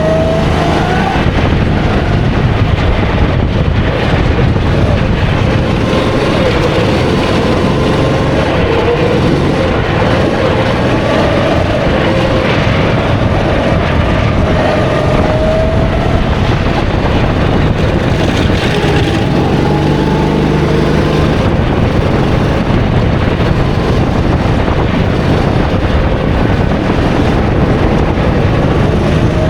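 A 270cc racing kart engine running hard, its pitch rising and falling as the revs climb and drop through the corners, with a steady noisy rush behind it. Near the end the revs rise again.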